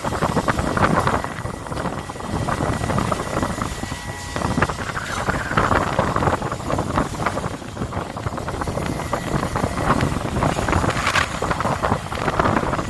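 Wind buffeting the microphone over the running noise of a longline fishing boat at sea, swelling and easing every second or two, with a faint steady high tone.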